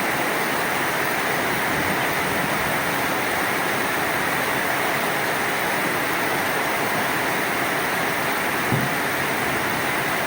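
Heavy downpour of rain falling steadily, a dense even hiss.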